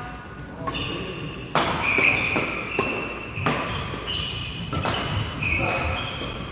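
Badminton doubles rally: sharp racket hits on the shuttlecock about once a second, with short high-pitched shoe squeaks on the court mat between them.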